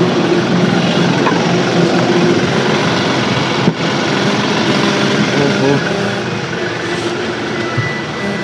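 Vehicle engine running steadily with road noise, heard from inside the vehicle, with a single sharp knock about four seconds in.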